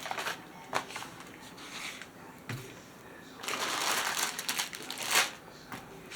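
Rustling and crinkling of a diamond painting kit's packaging and canvas being handled, in short bursts with a longer stretch of crinkling past the middle and a soft thump about two and a half seconds in.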